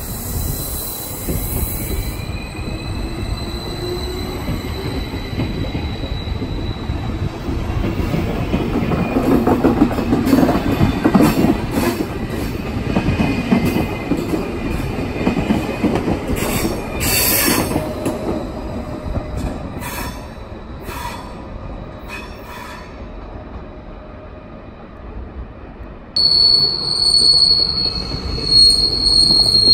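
SBB RABe 511 (Stadler KISS) double-deck electric train pulling out, its traction motors whining up in pitch as it gathers speed, then the wheels clicking over the rail joints as it runs off round the curve. Near the end a loud, high-pitched wheel squeal starts suddenly as a Thurbo railcar comes in on the curve.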